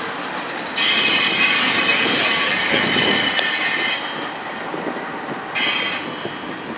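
Double-stack container freight train rolling past, its wheels rumbling on the rails. A loud, high-pitched wheel squeal sets in about a second in and stops near four seconds, and a shorter squeal comes back near the end.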